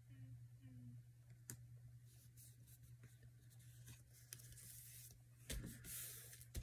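Faint handling of paper and sticker strips: light rustles and small clicks, then a louder rustle of paper sliding and being pressed flat by hand near the end, over a low steady hum.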